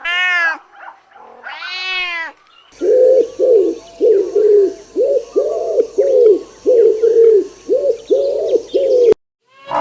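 A domestic cat meowing twice. Then a run of about a dozen short, low cooing calls from a bird, at roughly two a second, which stops abruptly.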